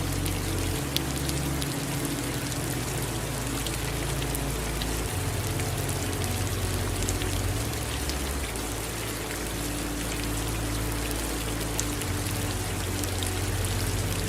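Steady rain falling, with scattered drops ticking and water running alongside. Low sustained tones underneath shift to new pitches every few seconds.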